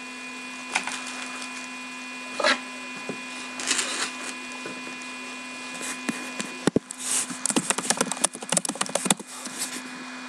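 Trading-card boxes and their packaging being handled on a table: a few scattered taps and knocks, then a quick flurry of clicks and rustles about seven seconds in, over a steady low electrical hum.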